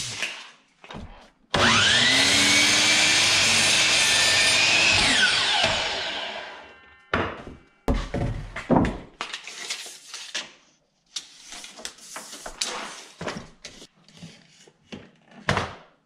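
Electric miter saw starting with a rising whine, running for about three seconds and then spinning down within a second or two. After that come scattered wooden knocks and clacks of boards and offcuts being handled.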